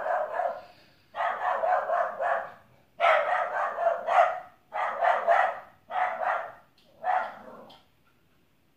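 A dog barking repeatedly in bursts of several quick barks each, about every second and a half, stopping about a second before the end.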